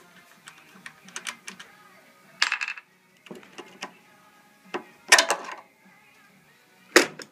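Wing nut being spun off the air filter cover's stud by hand with small metallic clicks, followed by clatter from the metal cover and plastic filter housing being lifted off, with louder knocks about two and a half, five and seven seconds in.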